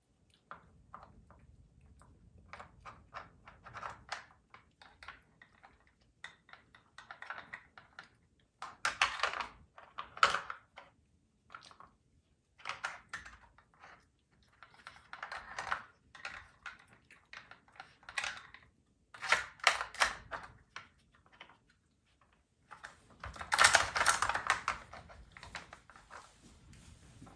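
Puppy nosing and pawing a plastic Dog Brick puzzle feeder: irregular clicks and clacks of its plastic sliders and lids, with louder clattering bursts now and then as she works the kibble out, the loudest a little before the end.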